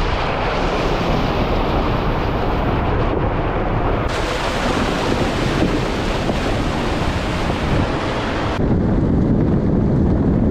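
Wind buffeting the microphone on a moving vehicle: a loud, steady rush with a low rumble underneath, shifting abruptly a couple of times.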